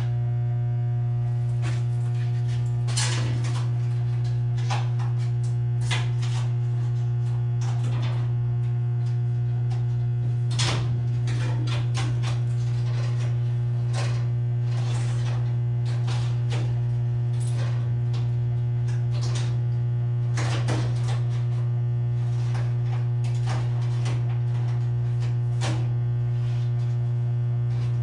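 Steady loud hum of two 150 kVA electrical transformers, one deep tone with a stack of overtones above it. Scattered clicks and knocks of a ground wire and tools being handled inside a switchgear panel sound over it.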